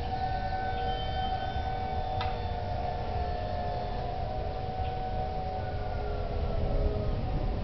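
Several Federal Signal outdoor warning sirens sounding together in a steady tone during a siren test, their pitches slightly different, over a low rumble. One tone slowly falls near the end.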